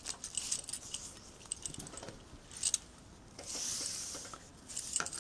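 Metal bangles jingling on a wrist and fabric rustling as a cloth tape measure is unrolled and laid along a length of fabric: scattered light rustles and clinks, with a longer rustle about three and a half seconds in.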